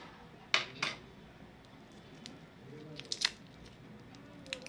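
Scissors snipping through a lollipop's plastic wrapper, with sharp cuts and crinkles: two loud snips about half a second in and another cluster near three seconds in.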